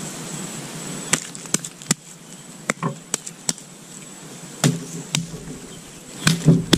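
Hands digging damp soil and packing handfuls of mud onto a ball of clay: a string of short knocks and pats, with heavier thuds near the end.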